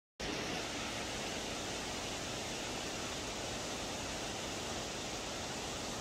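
Steady, even rush of falling water from Minoo Falls.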